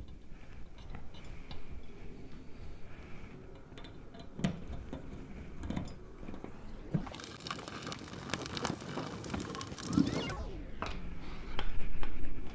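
Hand screwdriver driving a screw through a metal TV-mount wall bracket into a toggle bolt in drywall: scattered clicks and scraping, growing denser in the second half, with a few sharper knocks of the bracket against the wall.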